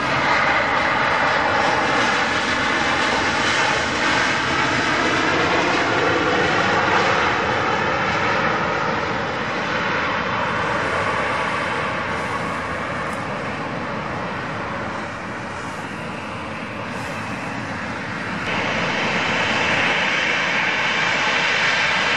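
Boeing 737-900ER's twin CFM56-7B turbofan jet engines running at high power during a takeoff roll, a steady loud jet roar with a slowly falling tone in the first few seconds. The level eases off through the middle and jumps back up abruptly about eighteen seconds in.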